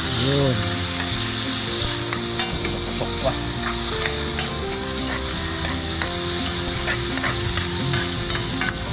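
Chopped turmeric sizzling in hot oil in a wok while a spatula stirs it, scraping and clicking against the pan again and again. The sizzle is strongest in the first couple of seconds, then settles to a steady frying hiss.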